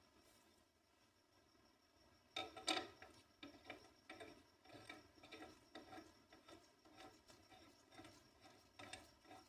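Faint rubbing and scraping as the spray gun's parts are worked by hand. A louder clatter comes about two and a half seconds in, followed by repeated short scraping strokes, about two a second.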